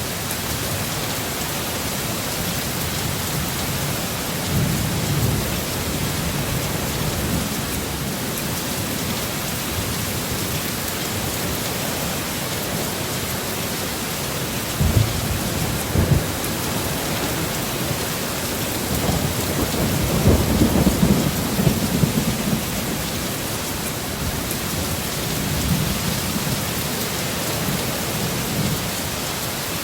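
Heavy rain hissing steadily, with rolls of thunder. Two sharp thunder cracks come about fifteen seconds in, and the longest rumble about twenty seconds in.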